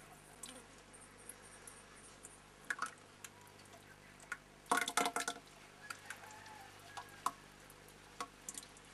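A long-handled ladle stirring and lifting liquid in a pot, with dripping and splashing and scattered light knocks against the pot. A quick run of sharp clatter and splashing comes about five seconds in.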